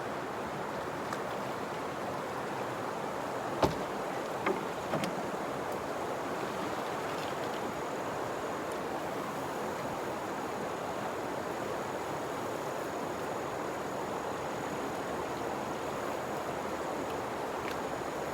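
Fast-flowing river water rushing over rapids, a steady even rush with no let-up. A few short knocks come about four to five seconds in.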